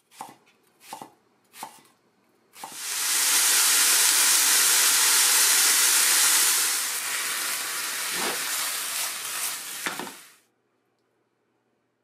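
A knife slicing white Japanese leek on a wooden cutting board, four strokes a little under a second apart, then thin-sliced pork sizzling loudly in a frying pan for about eight seconds, with a few knocks of a utensil near the end before it stops.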